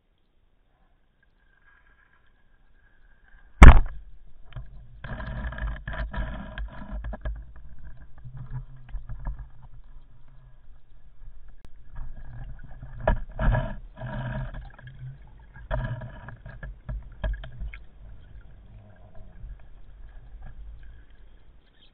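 Underwater noise of a diver moving through the water with a camera: a single sharp click about four seconds in, then irregular rumbling and rushing of water against the camera housing, broken by scattered knocks.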